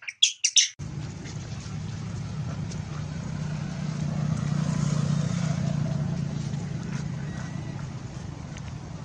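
A baby macaque screaming in rapid, high-pitched cries, three more cries that cut off under a second in. Then a steady low rumble that swells and fades around the middle.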